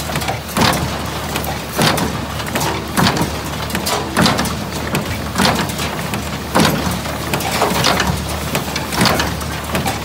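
IH 46 square hay baler running, its mechanism clanking in a steady rhythm, about one knock every 1.2 seconds, over a steady low drone from the drive.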